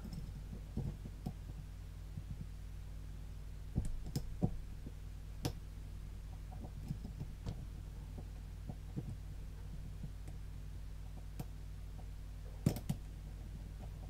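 Faint, irregular small metal clicks and ticks of a dimple pick being wiggled against the pin-in-pin stack inside a Mul-T-Lock Classic cylinder under tension, over a steady low hum.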